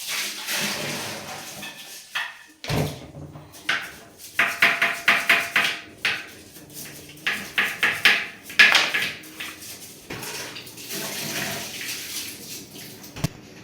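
Water splashing, with containers and utensils clattering, as in washing up or cleaning with a basin of water. It comes in runs of quick strokes through the middle, with a sharp knock near the end.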